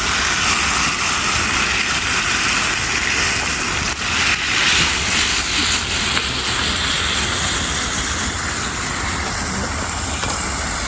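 Breakfast food sizzling and frying in a pan over a wood campfire, a steady hiss without a break.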